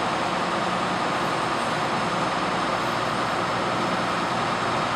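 Fire engine's diesel engine idling, a steady, even sound.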